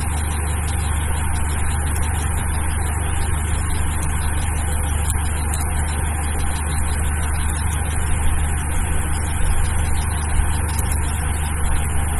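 Steady low hum with a constant hiss, and faint, scattered keyboard clicks of code being typed.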